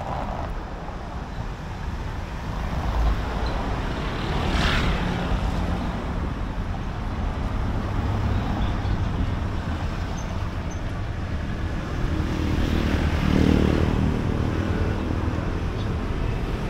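Street traffic: road vehicles running past with a steady low rumble, and one louder vehicle passing about three quarters of the way through.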